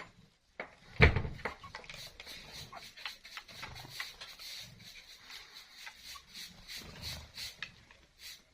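Aseel chickens (hens and roosters) making low calls among scattered clicks and scuffling, with one loud thump about a second in.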